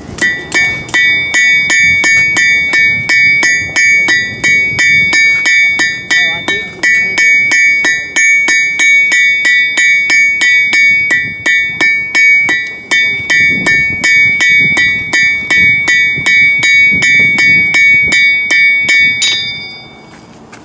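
Blacksmith's hammer striking metal on an anvil in a steady rhythm of about three blows a second, each blow leaving a bright ring from the anvil; the hammering stops about a second before the end. The smith is drawing out the metal, stretching and thinning it into a stem.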